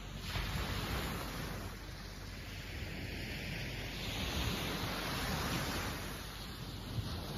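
Small waves breaking and washing up onto a sandy beach. The surf swells twice, once near the start and again in the middle.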